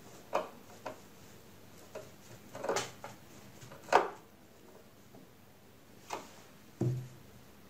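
Screwdriver driving screws into the plastic base of a Singer Promise 1408 sewing machine: scattered clicks and short scrapes of the metal tip in the screw heads and against the housing, the loudest click about four seconds in. A dull thump comes near the end.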